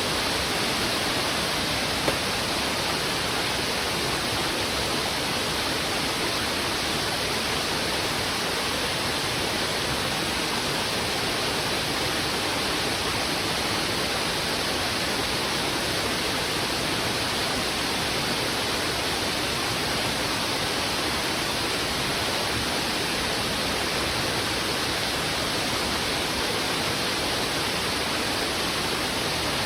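Heavy river water rushing steadily over rocks: a constant, unbroken hiss of flowing water.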